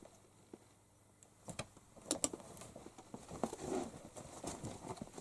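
Scattered light clicks, taps and soft rustling: a cat playing with a dangled string on a rug-covered wooden bench, with clothing brushing close by. A sharp pair of clicks comes about two seconds in.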